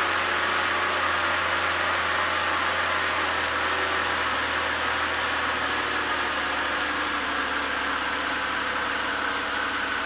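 2009 BMW 328i's N52 inline-six idling steadily just after starting. It has a new ignition coil and spark plug in cylinder 6, fitted to cure a cylinder 6 misfire.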